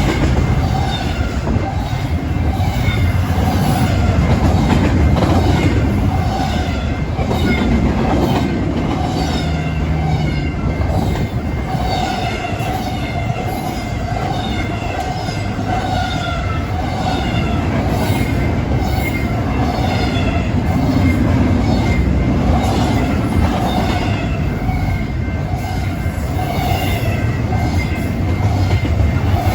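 BNSF intermodal freight train rolling past with a steady low rumble and wheel clatter, and short, high, falling squeals repeating again and again.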